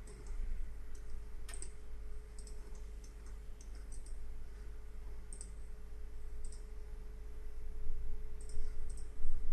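Computer mouse clicks: scattered single clicks, then a quick run of clicks near the end, over a steady low electrical hum.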